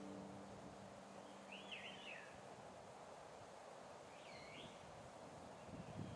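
A small songbird calls twice, about two and a half seconds apart: each call is a short chirping phrase of quick rising and falling notes. The calls are faint over a steady outdoor hush, with a soft low bump near the end.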